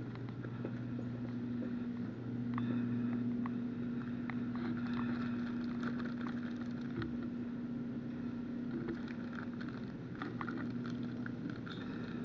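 Shop room tone: a steady low electrical hum with faint scattered clicks and rustles as the camera wearer walks.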